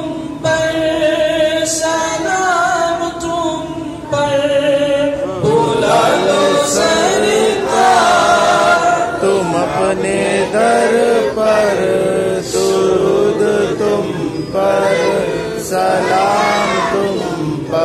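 A group of men chanting an Urdu devotional salam to the Prophet in unison. It grows fuller, with more overlapping voices, from about five seconds in.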